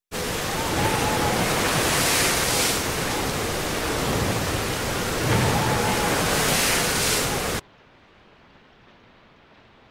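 A loud, even rushing noise that swells twice, then cuts off suddenly about seven and a half seconds in, leaving only a faint hiss.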